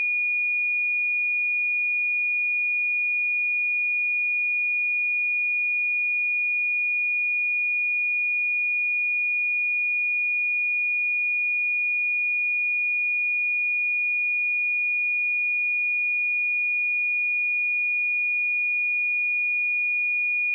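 A pure 2445 Hz sine-wave test tone, held steady at one high pitch and one level without a break.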